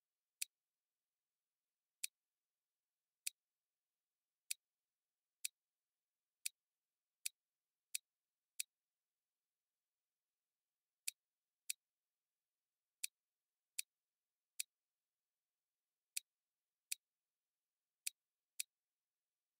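Computer mouse clicking: about eighteen sharp, identical clicks at uneven intervals, with a pause of a couple of seconds near the middle, over near silence.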